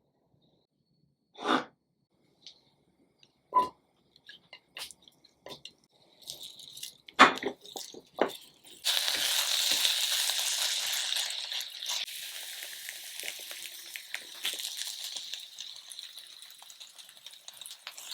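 A few knocks of kitchen utensils, then food starting to sizzle in a hot oiled pan about nine seconds in, loud at first and slowly dying down.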